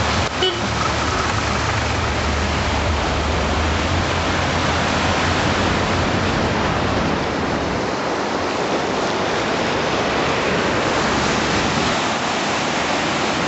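Loud, steady rush of falling or fast-flowing water, with a low rumble underneath that fades out about halfway through.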